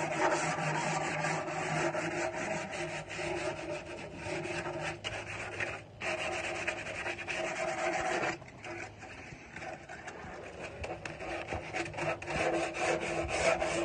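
Sandpaper rubbed by hand over a homemade box, a continuous rasping of quick back-and-forth strokes with a brief pause about six seconds in. The box is being smoothed so that its edges won't cut.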